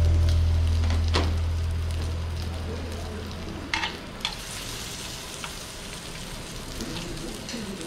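Pork belly sizzling on a grill: a steady hiss with a few sharp crackles, while a low music note fades away over the first few seconds.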